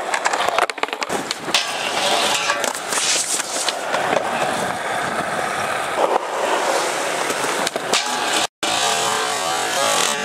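Skateboard wheels rolling on concrete, with sharp board clacks and knocks from tricks. The sound cuts out for a moment a little past eight seconds. Near the end a board slides along a flat rail.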